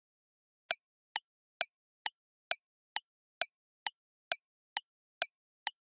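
Countdown timer sound effect: about a dozen short, evenly spaced ticks, a little over two a second, each with a slight ring.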